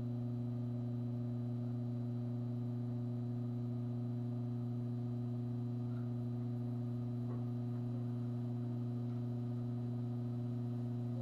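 Steady low electrical hum of the 150-volt AC supply driving an old 50-volt Nippon Chemi-Con electrolytic capacitor far past its rating, with a few faint crackles about six and seven seconds in as the capacitor smokes.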